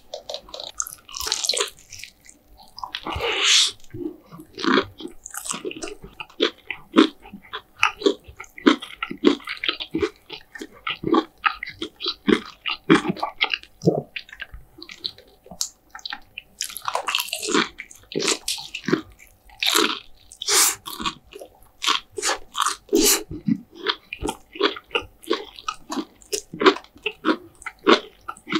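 Close-miked eating of KFC food: steady irregular chewing with crunchy bites, and louder bursts of crunching now and then.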